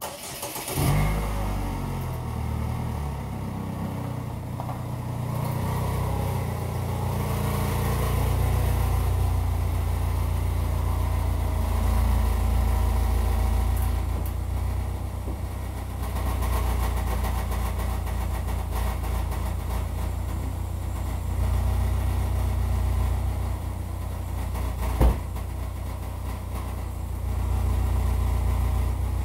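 Chevrolet Equinox engine starting about half a second in, then running with a loud, deep exhaust rumble through its blown muffler: the resonator muffler has split its seam. A single sharp knock near the end.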